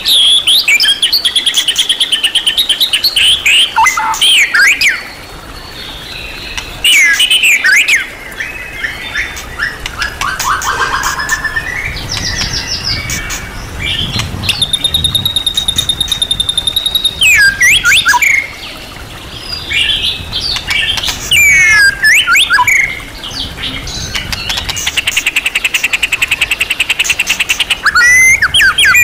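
White-rumped shama (murai batu) singing a long, varied song of sweeping whistles, fast trills and rattles, rich in phrases copied from other birds. A held high whistle comes in the middle, and a long buzzy trill near the end.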